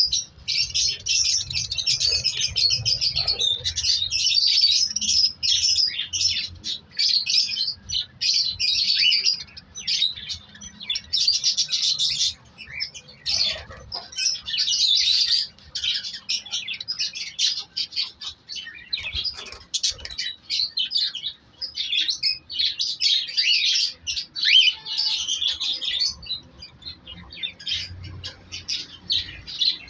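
Cockatiels chirping and calling in a cage: a dense, high-pitched chatter that runs almost without a break, with brief pauses around 10, 14 and 26 seconds in.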